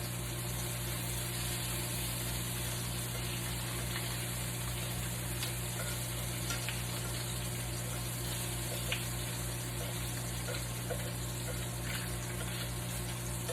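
Bacon sizzling and frying in a pan, a steady hiss with scattered small pops and crackles. A steady low hum runs underneath.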